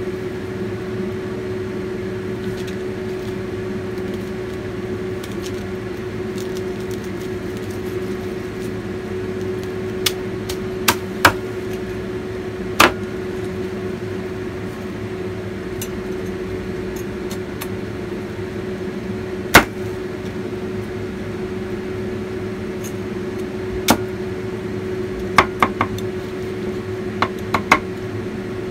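Cleaver chopping through crispy-skinned roast pork (lechon) onto a wooden chopping board: about a dozen sharp chops, scattered from about a third of the way in and bunched near the end, the crunch of the crackling skin. Under it a steady electrical hum.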